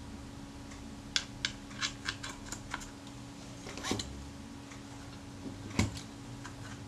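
Small metal clicks and taps from handling a Rolleiflex Automat camera body and fitting its focus knob back onto the shaft: a quick run of light clicks about a second in, a knock midway and a louder one near the end.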